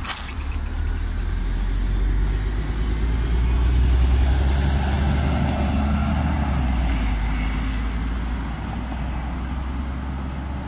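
LiAZ 5292.67 city bus with a compressed-natural-gas YaMZ-53624 engine pulling away from a stop. Its low rumble swells over the first few seconds, then slowly fades as the bus drives off.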